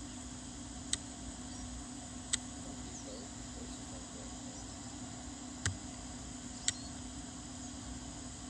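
Faint field ambience: a steady high-pitched chirring of crickets over a low steady hum, broken by four sharp clicks.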